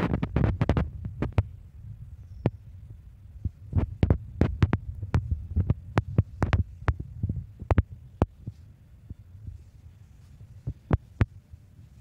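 Low rumbling noise right on the phone's microphone, starting suddenly, with many sharp irregular clicks and crackles scattered through it and easing off near the end.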